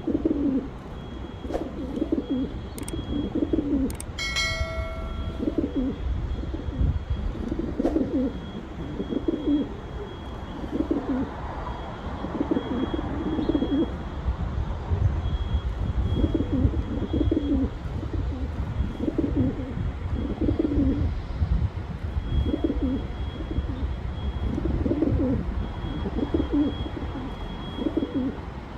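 Pigeons cooing, low throaty coos repeated one after another with a low rumble underneath. A brief high tone cuts in about four seconds in.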